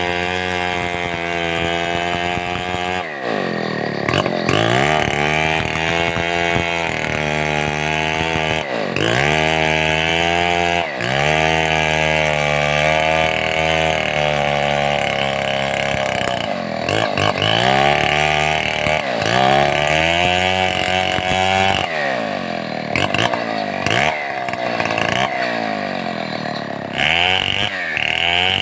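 Stihl 070 two-stroke chainsaw running hard while cutting timber. The engine pitch sags and climbs back several times as the chain loads up in the wood and frees again.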